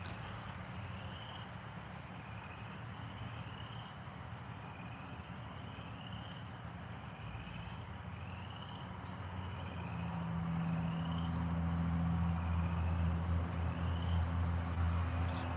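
Night chorus of insects: a steady buzzing haze with a short rising chirp repeating about once a second. About ten seconds in, a low steady drone comes up and becomes the loudest sound.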